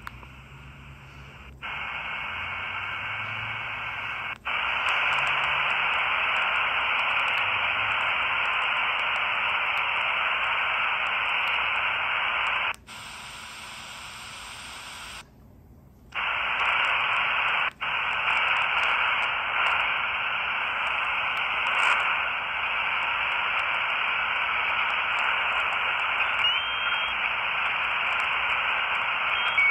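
Miniature 4732 shortwave radio giving off a loud, steady hiss of static with no station coming through, a sign of its poor reception on these bands. The hiss jumps in level, changes and cuts out briefly a few times as the set is tuned or switched, and short whistles come in near the end.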